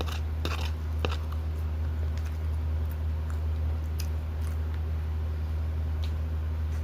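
A person chewing a mouthful of food, with a few short wet smacks and clicks, the densest in the first second or so. A steady low hum runs underneath.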